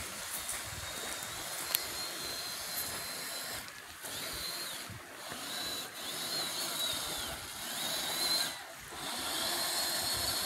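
Redcat Gen8 RC crawler's electric motor and drivetrain whining as it drives through sand, the high whine rising and falling in pitch with the throttle and dropping away briefly several times.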